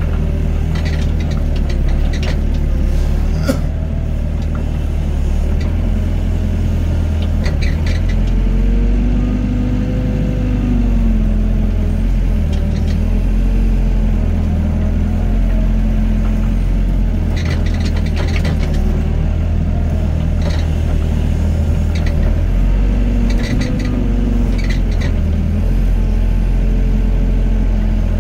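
Doosan excavator's diesel engine running steadily under working load, its pitch rising and falling as the hydraulics swing and dig. Short bursts of clatter come several times as the bucket works the sand.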